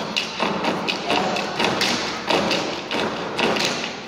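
Step team stepping in unison: a fast, rhythmic run of foot stomps and hand claps, dying away near the end.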